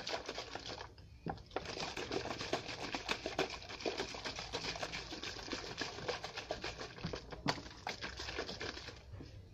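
Closed plastic bottle of water and poster paint being shaken hard by hand: a fast, continuous rattle and slosh of liquid against the plastic, with a short break about a second in and another near the end.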